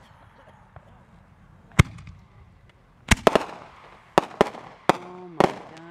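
Aerial firework shells bursting overhead: a single sharp bang just before two seconds in, then a quick run of bangs from about three seconds on, some close together in pairs.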